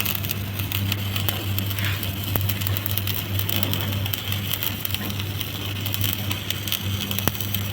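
Stick (SMAW) welding arc crackling and sizzling steadily as a vertical-up cap pass is run, over a steady low hum.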